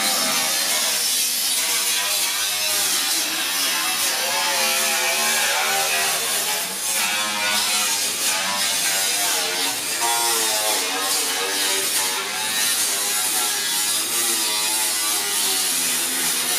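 Handheld angle grinder cutting into the sheet-steel rear wheel arch of a BMW E46: a loud, continuous grinding noise, with a motor whine that wavers up and down in pitch as the disc is pressed into the metal. The arch is being trimmed back to make room for bolt-on over-fenders.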